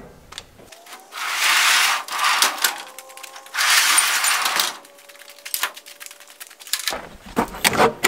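Large sliding doors of a metal machine shed rolled open along their track: two scraping rushes, each about a second long, with a faint thin squeal from the rollers, then a few light knocks.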